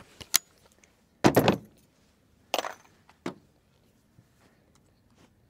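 Metallic clatter from a 16-inch .357 Magnum carbine being handled just after a shot: a short rattle about a second in, then two shorter clacks.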